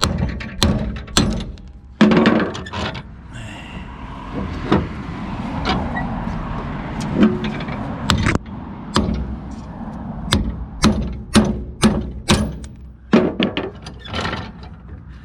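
A 4-pound hammer striking steel lug studs in a 2018 Subaru Forester wheel hub, driving the old studs out. The blows are sharp and metallic and come in a run, about two a second in the second half.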